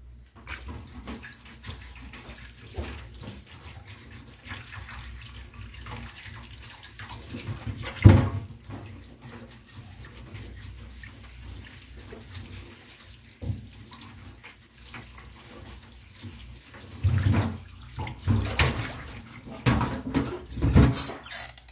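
Tap water running into a stainless steel sink and a small metal bowl while potatoes are rubbed clean by hand under the stream. A sharp knock about eight seconds in, and a run of louder knocks and splashes near the end.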